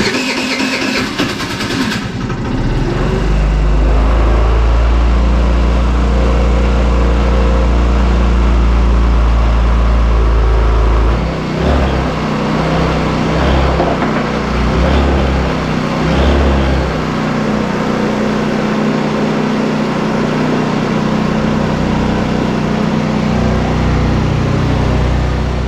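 Small scooter engine running after it catches, with a rattly high-pitched start in the first couple of seconds and then a steady idle. From about eleven seconds in it runs unevenly as the revs rise and fall, then settles again. This is the engine running despite weak fuel flow that the owner suspects comes from the fuel petcock's diaphragm.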